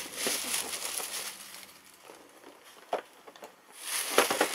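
Thin plastic shopping bag rustling and crinkling as a hand rummages in it. It goes quieter in the middle, with a single sharp click about three seconds in, and rustles again near the end.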